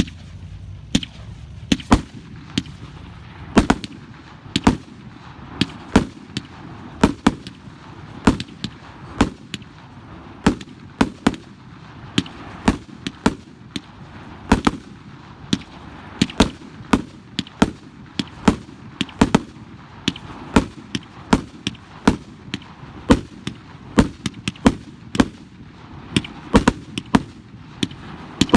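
Fireworks going off in a rapid string of sharp bangs, about one or two a second, some coming in quick pairs.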